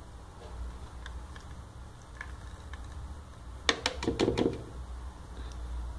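Plastic yogurt cup clicking and knocking against the rim of a plastic blender jar as yogurt is poured in: a quick cluster of sharp taps a little past halfway, with a few faint handling ticks before it.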